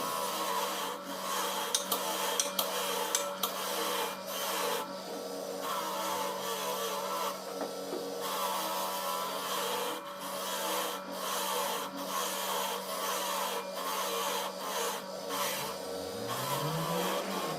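Repeated scraping and rubbing strokes of hand work on an alternator part, in uneven bursts with short breaks, over a steady low hum. Near the end a low tone rises in pitch.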